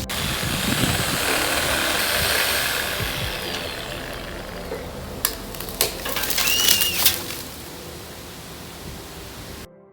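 Corded 6-amp electric reciprocating saw cutting through a tree branch. It runs loudest for the first few seconds, then eases off, with a few sharp knocks about halfway through.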